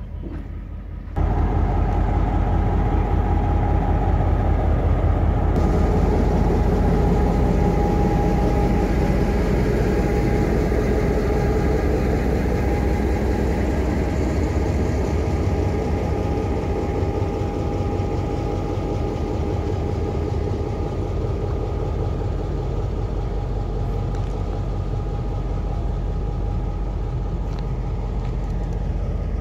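A large engine idling steadily, with a low, even rumble and a few steady tones over it. It comes in abruptly about a second in.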